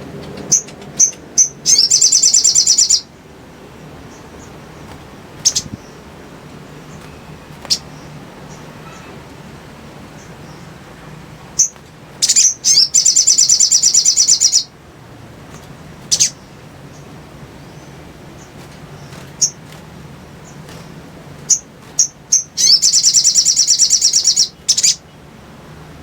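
Sogok ontong (little spiderhunter) singing: three bursts of fast, evenly repeated high notes, each lasting one to two seconds and led in by a few sharp single chips, with more lone chips scattered between the bursts.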